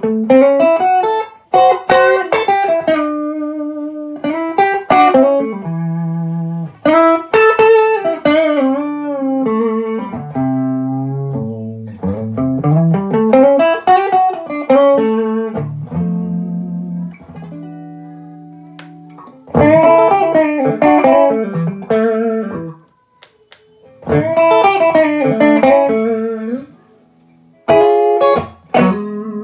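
Dax&Co. Workhorse thinline electric guitar played through an amplifier: phrases of chords and single-note melodic runs, with notes left ringing and short pauses between phrases.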